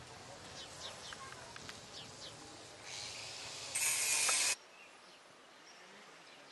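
Outdoor ambience with short, quick chirping bird calls and a few light clicks. About three seconds in, a hiss rises to a loud rush that lasts about a second and cuts off suddenly. Quieter background with faint bird chirps follows.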